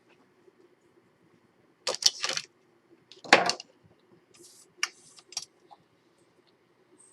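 Craft tools and supplies clacking and tapping as they are handled and set down on a work table: a cluster of knocks about two seconds in, a single louder knock a second later, then a few lighter taps.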